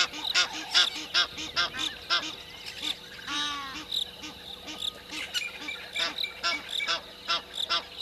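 Birds giving repeated short, harsh alarm calls, several a second, as they mob a perched African fish eagle, with one longer arched call about three and a half seconds in.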